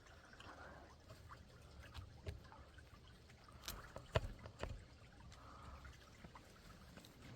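A freshly caught fish being handled, with a few faint knocks and light water sounds; the sharpest knock comes about four seconds in.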